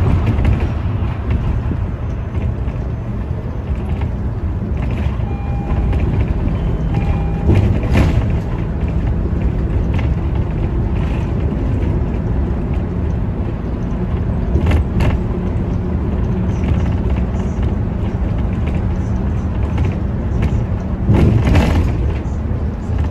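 Steady low rumble of a city bus's engine and tyres on the road, heard from inside the cabin, with a few sharp knocks or rattles, and two short beeps several seconds in.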